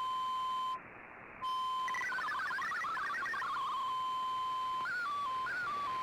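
MFSK digital-mode data tones received from a shortwave broadcast. A steady tone drops out briefly about a second in, then comes a stretch of rapidly hopping tones, a steady tone again, and tones stepping up and down near the end.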